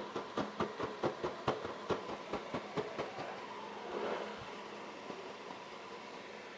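Gas stove igniter clicking in a quick, even run of about five clicks a second for some three seconds while the burner is lit, then a short rush of noise about four seconds in and a low steady hiss.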